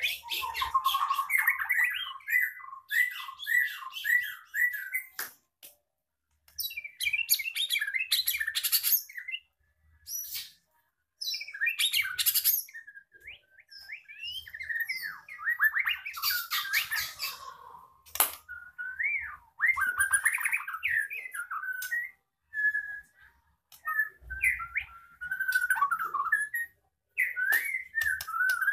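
White-rumped shama singing in bouts: fluid whistled phrases that glide up and down, mixed with rapid harsh, rattling runs, broken by short pauses of about a second. The bird is mid-molt, and its owner notes its voice is not yet fully back to normal.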